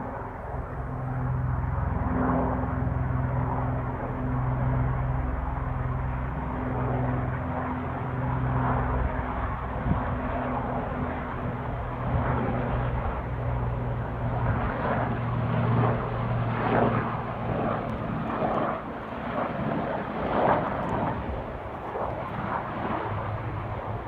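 Helicopter in flight: a steady low drone of engine and rotor under a rough, rushing noise. The low drone weakens about two-thirds of the way through.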